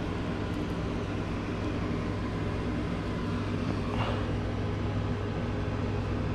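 Steady low machine hum, with a faint click about four seconds in.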